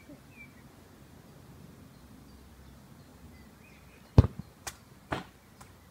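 Three dull thuds about four seconds in: a loud, low first one, then two lighter ones about half a second apart.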